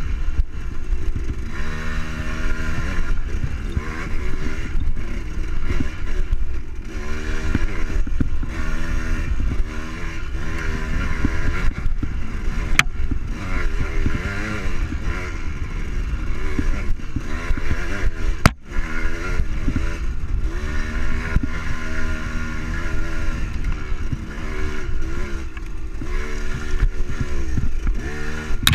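Enduro dirt bike engine being ridden hard, its revs rising and falling again and again as the rider works the throttle and gears. The engine cuts out briefly about two-thirds of the way through.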